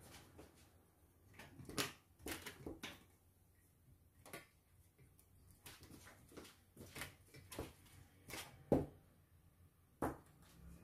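Handling of a folding metal laptop table: scattered clicks and knocks as its plastic-jointed legs and top are moved and set, the loudest about nine seconds in.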